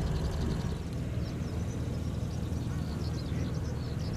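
Steady low drone of the airship's propeller engines as it climbs away after take-off.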